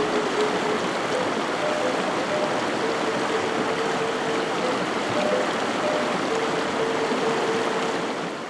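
Brook water running steadily over a streambed, a dense even rush, with a few faint held musical notes over it. The sound begins to fade out near the end.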